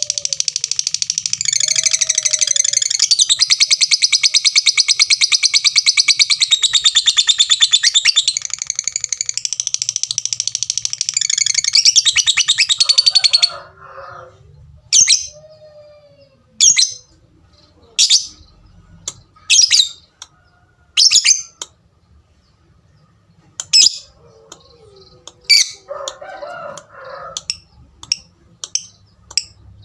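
Lovebird singing a long, unbroken rapid chatter (the 'ngekek' trill) for about thirteen seconds, which then stops abruptly. After that come single sharp 'tik' chirps about every second and a half, coming faster near the end.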